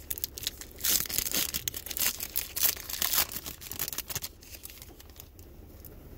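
Shiny plastic trading-card pack wrapper being torn open and crinkled: a quick run of crackles from about a second in that dies away after about four seconds.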